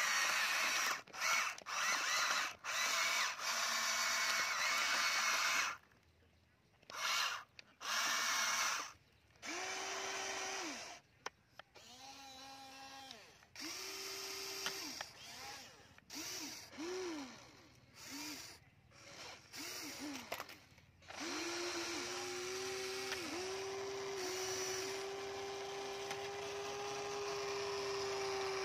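Electric motors of a Huina remote-control toy excavator whining in short start-stop runs as it works the arm and bucket, the pitch rising and falling with each move. For the last third one steady whine runs on.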